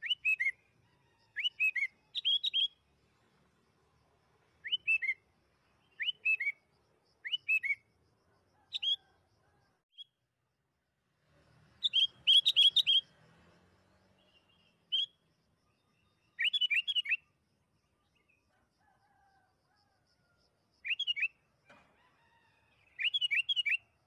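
Sooty-headed bulbul (kutilang) singing in short bursts of two to four quick, falling chirpy notes, repeated every second or two with pauses between. The loudest run comes about halfway through.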